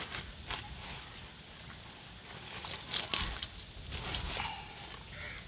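Cooked, partly charred banana leaves crinkling and crackling as they are peeled back by hand, with a louder burst of crackling about three seconds in.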